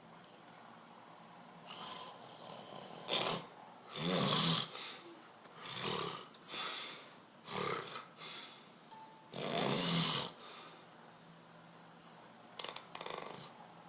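A sleeping man snoring loudly: a run of irregular snores, the loudest about four and ten seconds in, then a few fainter ones near the end.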